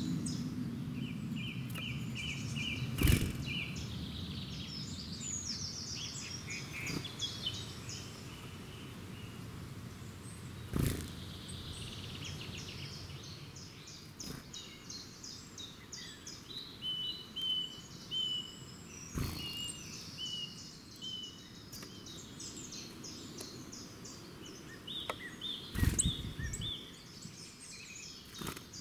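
Several songbirds singing at once, with quick trills and runs of short high repeated notes. A few sharp knocks break in now and then, the loudest about three seconds in and near the end, over a low rumble that fades away in the first few seconds.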